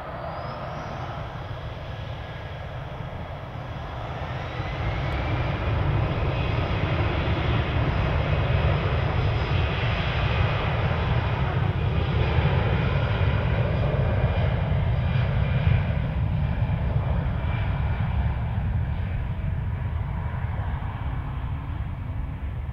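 Airbus A320 jet engines at takeoff power on the takeoff roll. A rising whine in the first few seconds as the engines spool up; the noise grows louder about four to six seconds in, is loudest as the aircraft passes, and slowly fades as it rolls away.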